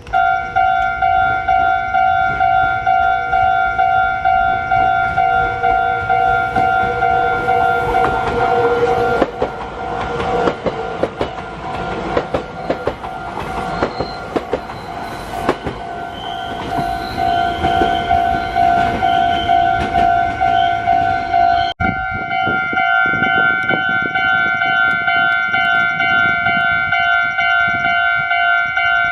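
Level crossing warning bell ringing with a steady repeating two-tone ding while a train passes over the crossing, its wheels clattering over the rail joints through the middle stretch. The sound cuts off abruptly about 22 seconds in and the crossing bell carries on.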